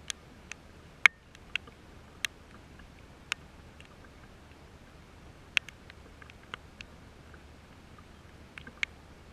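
Irregular sharp ticks of raindrops striking a hard surface close to the microphone, a dozen or so scattered over a steady low hiss, the loudest about a second in.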